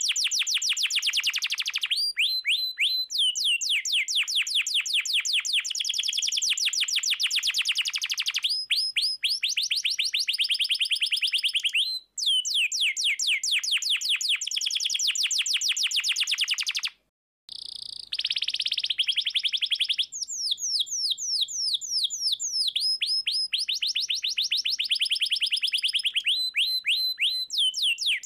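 Domestic canary singing a long song of fast rolling trills, each a rapid run of repeated high notes that switches to a new note type every few seconds. The song breaks off twice, briefly, about 12 and 17 seconds in.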